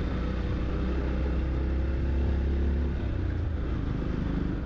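Yamaha FZ-X motorcycle's single-cylinder engine running steadily while riding, with road and wind noise; the engine note eases slightly about three seconds in.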